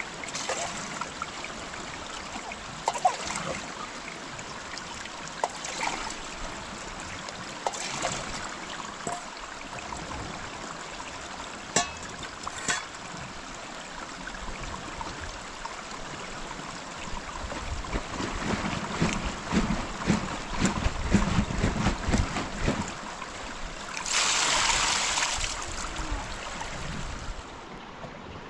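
Steady rushing of a mountain stream, with scattered sharp clicks and knocks, a run of low thumps about two-thirds of the way through, and a louder burst of hiss for about two seconds near the end.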